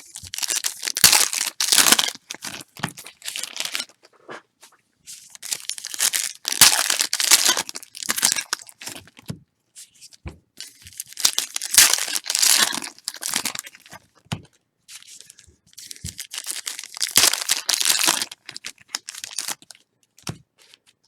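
Crinkling and rustling of trading-card pack wrappers and cards being handled, in several bouts of a few seconds each with short quiet gaps between.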